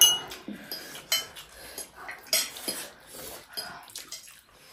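Metal forks clinking and scraping on ceramic plates while noodles are eaten, with a handful of sharp clinks spread out, the loudest at the start.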